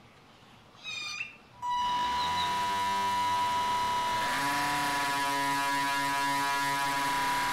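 Electric motor of an RC airplane-to-boat conversion spinning its propeller as the craft drives across the pool: a steady buzzing whine that starts suddenly, rises in pitch as the throttle opens, and shifts pitch again partway through. A short blip is heard just before it starts.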